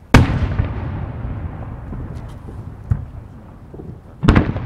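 No. 5 (about 15 cm) aerial firework shells bursting. A loud sharp boom comes just after the start and rolls off into a rumble of echo over a couple of seconds. A fainter thud follows near three seconds, then another loud boom near the end.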